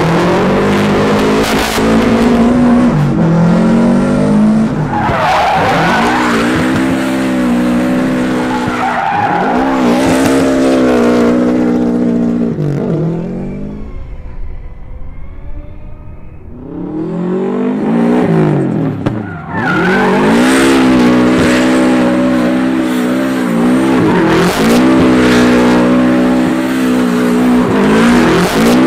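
Subaru rally car's turbocharged flat-four engine revving hard up and down again and again while drifting, with tyres skidding. Midway the engine drops back and goes quieter for a few seconds, then revs up again.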